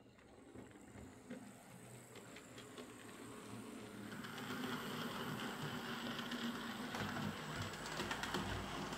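Hornby OO gauge A4 'Mallard' model locomotive running along the track: its small electric motor hums steadily and its wheels click lightly on the rails. The sound grows louder as the locomotive comes closer.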